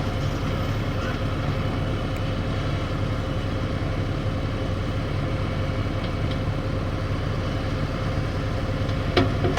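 Heavy diesel engines running steadily: a tracked excavator working to push a tipper truck stuck in the mud, with the truck's engine also running.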